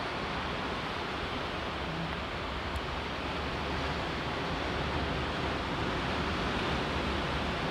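Steady outdoor rushing noise with no distinct events, with a faint tick about three seconds in.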